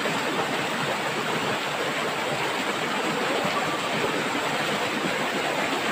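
Fast-flowing shallow river rushing steadily, its current strong after recent rain.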